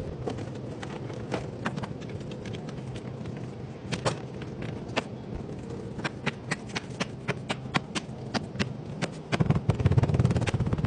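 Irregular sharp taps and clicks, several a second at their busiest, over a steady low hum, with a heavier low rumble starting about nine seconds in.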